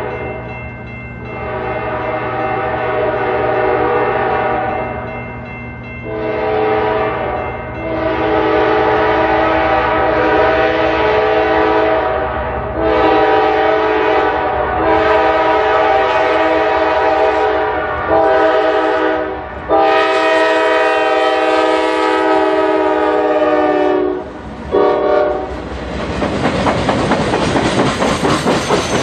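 Norfolk Southern diesel locomotive's air horn sounding a long series of blasts, most several seconds long and the last a short one, as the train approaches with its engine running low underneath. Near the end the locomotive passes close and the RoadRailer trailers roll by with a loud rhythmic clatter of wheels over the rail joints.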